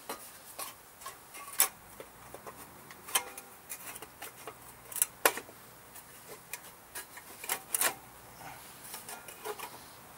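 Irregular sharp metal clicks and clinks, a few with a short ring, from tin snips cutting metal on a lawn mower to clear room for the engine. The clicks are loudest about one and a half seconds in, around three seconds, around five seconds and near eight seconds.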